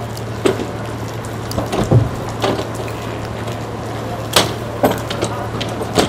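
The rescue boat's engine running with a steady low hum. Scattered sharp knocks and clatter sound over it, the loudest about two seconds in and again about four and a half seconds in.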